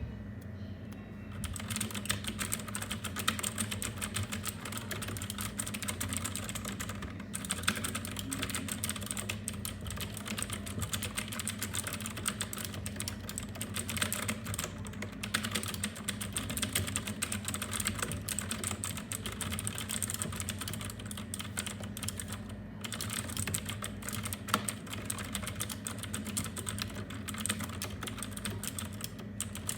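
Typing on a Royal Kludge RK61 mechanical keyboard with clicky blue switches: a dense, continuous stream of key clicks. It starts about a second and a half in, with brief pauses about seven seconds in and again near twenty-three seconds.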